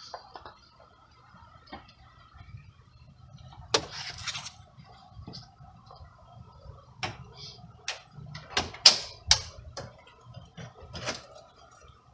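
Scattered sharp clicks and knocks, about a dozen, loudest near the middle, over a faint steady high tone.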